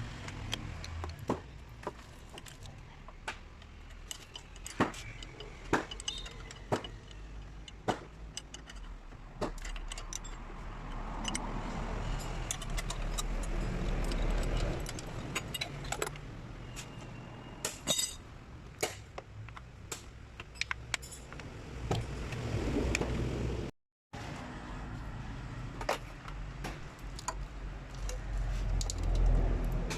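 Irregular metallic clinks and clicks of hand tools and metal parts being handled during car repair work, over a low steady hum. The sound cuts out for a moment about two-thirds of the way through.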